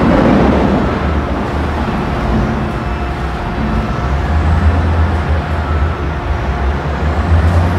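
Heavy diesel engines of a wheel loader and a mine haul truck running under load, with a deep steady drone that grows stronger about halfway through. A short rush of noise comes right at the start.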